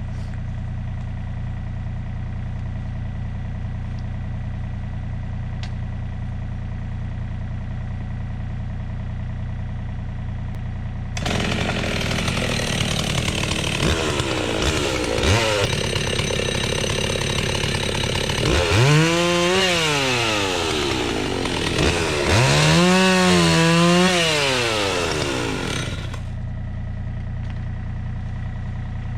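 An engine idles steadily. About eleven seconds in, a Husqvarna 61 two-stroke chainsaw opens up and cuts through small rotten cedar logs for about fifteen seconds. Its revs dip and climb back twice as it bogs under load in the wood, then it drops back to the steady idle.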